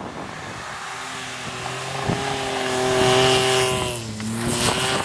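Hyundai Galloper SUV's engine working hard at high revs as it ploughs through deep snow. A rushing hiss comes first, then the engine note rises and holds, drops about four seconds in, and climbs again.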